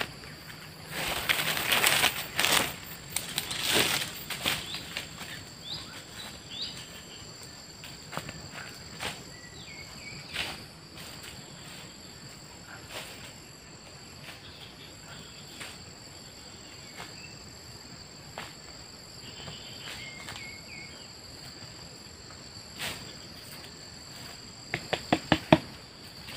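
Steady high insect drone with a few short bird chirps. There are a few seconds of loud rustling near the start and a quick run of sharp clicks near the end.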